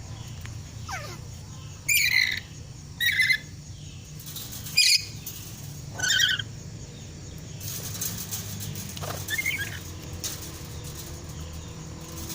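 Nuri parrot (lory) giving four short, shrill calls in the first six seconds, over a steady low hum.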